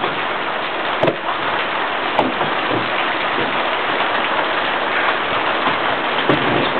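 Steady loud rushing noise, with a couple of short sharp knocks about one and two seconds in.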